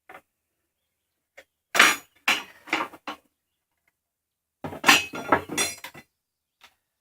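Clattering, clinking handling noise in two bursts of about a second and a half each, as the chop saw and its packing are handled and opened up.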